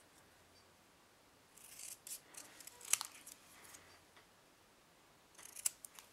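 Small craft scissors snipping a paper label: one sharp snip about three seconds in and a few quick snips near the end.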